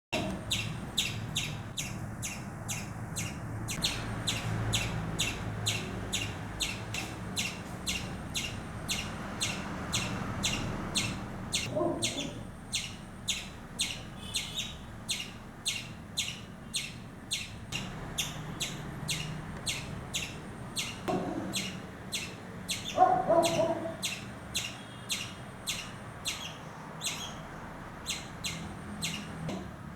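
A frightened squirrel giving its alarm call: sharp chirps repeated steadily, about two a second. A few short lower sounds come through, the loudest about three quarters of the way in.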